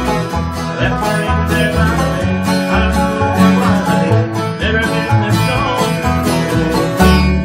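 Bluegrass band playing: banjo picking over acoustic guitar strumming, with an upright bass sounding steady low notes on the beat.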